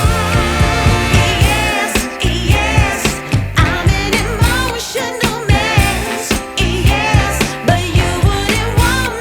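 Background music: a song with a sung vocal line with vibrato over a steady beat.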